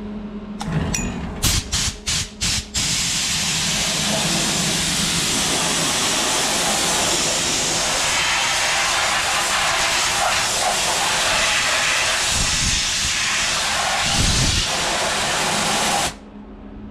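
Compressed-air blow gun clearing aluminium chips off a freshly machined part in a CNC mill: a few short blasts, then one long steady hiss of air that cuts off suddenly near the end.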